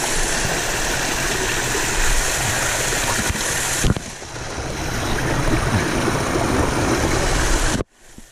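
Small mountain waterfall pouring over rocks right beside the microphone: a steady, loud rush of falling water. It dips briefly about four seconds in, then cuts off abruptly near the end.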